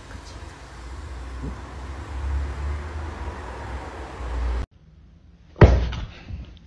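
A steady low rumble of background noise that cuts off suddenly about two-thirds of the way through. About a second later there is one loud, sharp, short sound.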